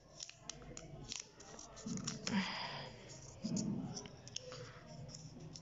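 Hands handling a new smartphone in its clear plastic protective wrap, trying to get it open: light clicks and taps, with a short plastic rustle about two and a half seconds in.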